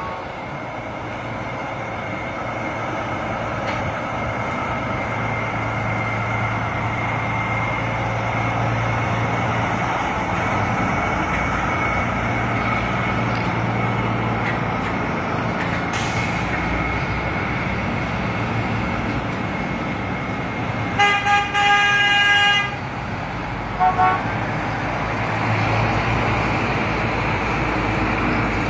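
Heavy tractor-trailers running past close by, a steady engine drone with tyre and road noise. About three-quarters of the way through, a vehicle horn gives three quick blasts and a longer one, then two short toots a moment later.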